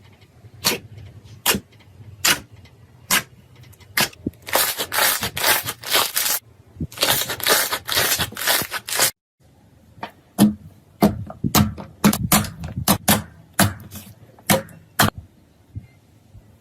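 Slime being squished and poked close to the microphone, giving sharp pops and clicks, with a dense stretch of crackling in the middle. After a brief break about nine seconds in, a second run of quick pops and clicks follows.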